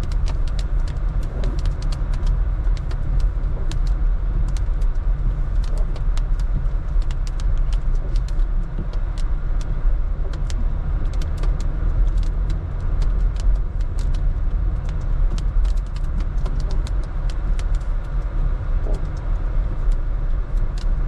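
Inside a car creeping downhill in first gear on a wet, hail-strewn mountain road: a steady low rumble of road and engine, with scattered sharp ticks all through.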